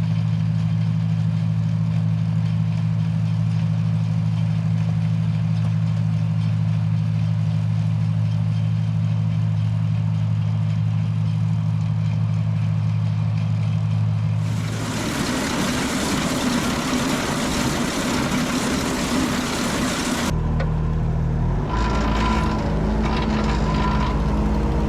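Farm tractor engine running at a steady speed. About 15 seconds in it gives way abruptly to a loud, even rushing noise. About 20 seconds in that changes abruptly again to machinery running with a steady low hum and a few higher tones.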